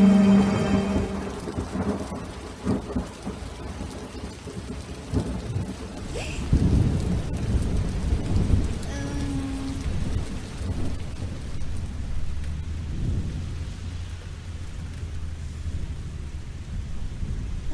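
Thunderstorm: steady rain with low thunder rumbling and swelling several times, loudest about six seconds in.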